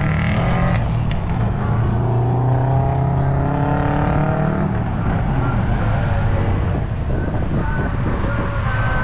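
A motor vehicle's engine running with a loud, steady low rumble. Its pitch climbs slowly through the first four or five seconds, then levels off into a rougher, even sound.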